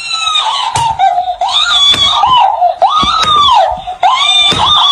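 A person's high-pitched screaming: a run of shrieks, roughly one a second, each rising and then falling in pitch.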